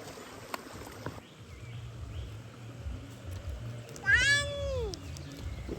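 A single drawn-out animal call about four seconds in, lasting about a second and sliding down in pitch, over a low steady rumble.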